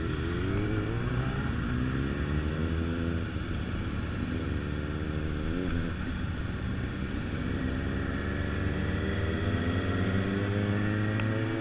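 Motorcycle engine heard on board, pulling away and accelerating through the gears: the pitch climbs, drops at an upshift about three seconds in, climbs again, drops at a second shift just before six seconds, then rises slowly and steadily.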